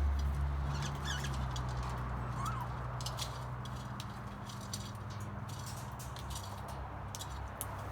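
A few faint, short parrot chirps and squeaks from the aviary, one about a second in and a small rising-and-falling call a little later, over a steady low hum that fades slowly.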